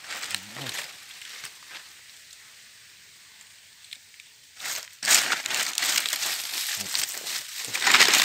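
Rustling and crinkling as a wire-mesh snake trap is handled among dry leaves and a plastic sack, starting about halfway through after a quiet stretch.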